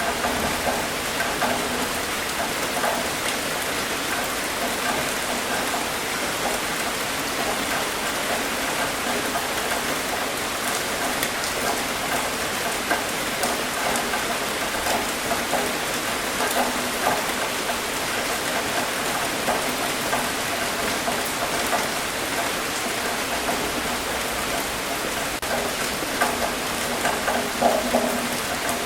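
Steady rain falling on a surface, a dense even hiss of drops with individual drips pattering through it and a few louder patters near the end.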